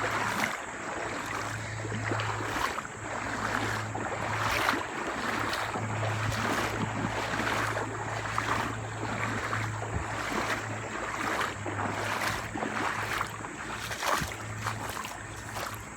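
Water sloshing and splashing around the legs with each stride of someone wading upstream through a shallow, fast-moving river, over the steady rush of the current.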